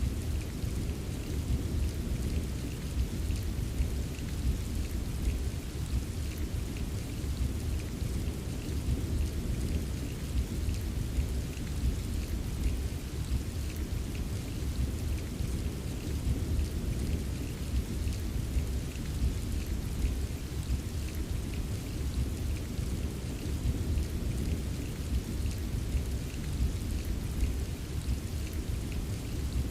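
Recorded rain ambience: steady rain with small drops ticking over a continuous deep rumble, with no single loud clap or break.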